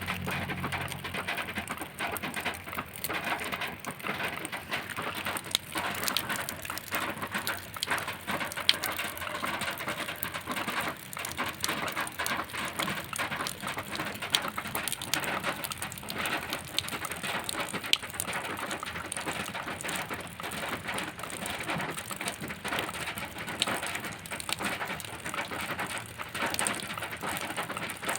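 Rain falling on zinc sheet metal: a dense, steady patter of drops ticking sharply on the metal.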